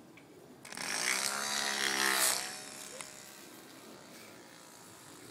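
Toy airplane's spinning propeller buzzing, loud for about two seconds as the plane is launched, then fainter and steady as it flies off.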